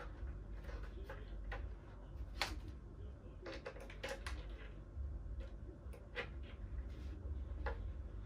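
Scattered, irregular light clicks and taps of hand work on a plywood panel: a metal hinge and screws being handled and positioned, and a cordless drill picked up, without the drill motor running. The clicks sit over a low steady hum.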